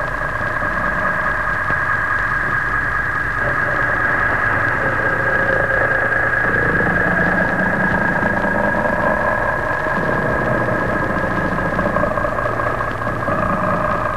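A steady, noisy drone in the film's soundtrack: a sustained high hum over a lower rumble, with no distinct notes or strokes, swelling a little in the middle.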